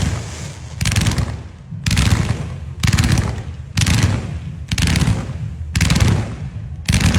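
Fireworks going off in a rapid series: a burst of fast crackling bangs about once a second, seven or eight in all.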